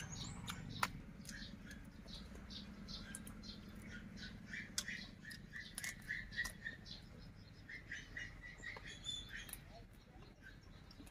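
Close-up mouth sounds of eating roasted chicken off the bone: a string of small wet clicks from chewing, sucking and lip-smacking. A bird chirps in short repeated notes through the middle.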